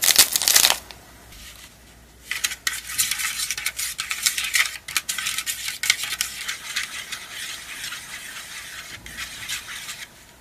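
A short crackle of a foil-paper packet as the last powder is shaken out. From about two seconds in, a small plastic spoon stirs powder into water in a plastic candy-kit tray, a fast scraping and clicking against the plastic that stops near the end.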